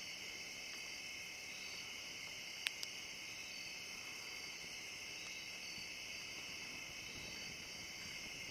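Night chorus of crickets: a steady, high-pitched trilling. Two sharp clicks, close together, come about a third of the way in.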